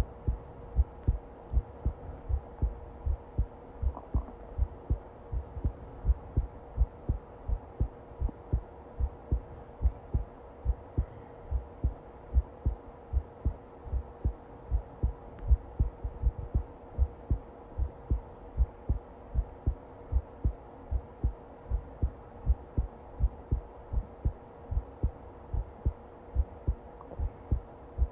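Heartbeat: an unbroken, even rhythm of low thumps, roughly two to three a second, over a faint steady hum.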